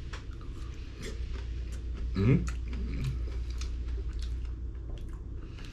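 Chewing a mouthful of sushi roll, with many small, irregular wet clicks and smacks of the mouth.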